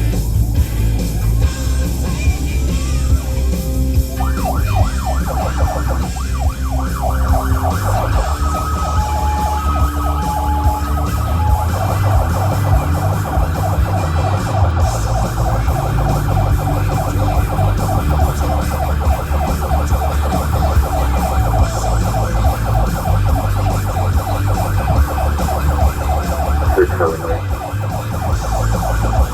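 Florida Highway Patrol car's electronic siren sounding in a fast, rapidly repeating yelp, starting about four seconds in, over a steady low rumble of engine and road noise.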